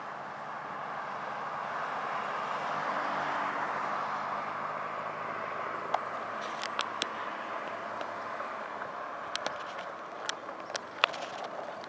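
Steady rolling noise of a bicycle being ridden along a road, swelling a few seconds in, with scattered sharp clicks and ticks in the second half.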